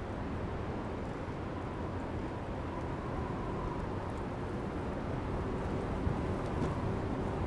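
Steady low rumble with a faint hum, like a vehicle or traffic ambience.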